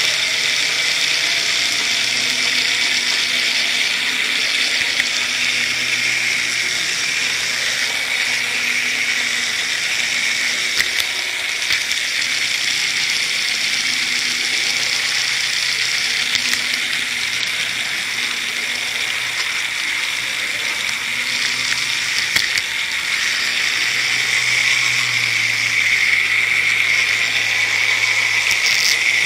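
N gauge model train running along the track, heard close up from on board: a steady high-pitched whine and rush from its motor and wheels, with a few light clicks, getting a little louder near the end.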